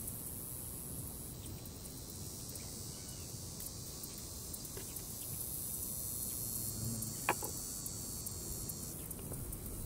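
Steady, high-pitched insect chorus, with one band of it stopping about a second before the end. A single short click about three-quarters of the way through.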